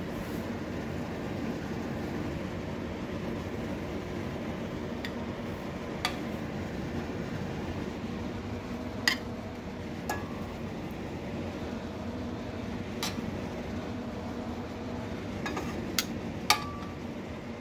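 Metal tongs clinking now and then against a stainless-steel frying pan and a ceramic plate as scallops are moved from pan to plate. There are a handful of sharp clinks, the loudest about halfway through and near the end, over a steady low hum.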